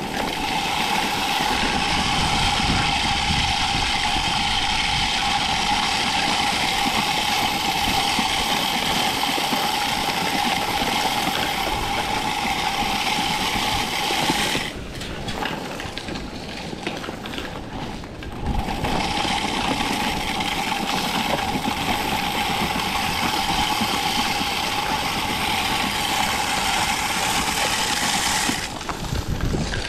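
Walk-behind salt spreader running as it is pushed, its spinner whining at a steady pitch over the hiss of salt being thrown. It stops about halfway through for a few seconds, then starts up again and runs until just before the end.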